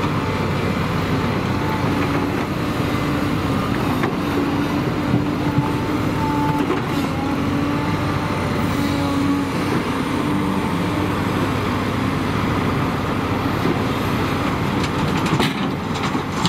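Volvo EC210B excavator's diesel engine running under load as the machine digs, lifts and swings a bucket of frozen dirt, with a hydraulic whine that comes and goes. A few short knocks, one near the end as the bucket is over the dump truck bed.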